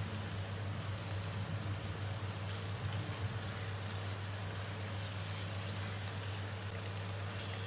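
Chicken and spice paste sizzling steadily in hot oil in a nonstick wok while being stirred, the bhuna frying stage of a curry, over a steady low hum.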